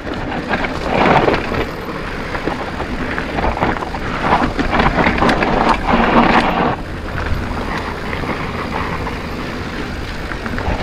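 Mountain bike rolling fast down a steep dirt singletrack: tyres crunching over loose dirt, with wind rushing over the camera microphone. The noise swells about a second in and again for a couple of seconds in the middle.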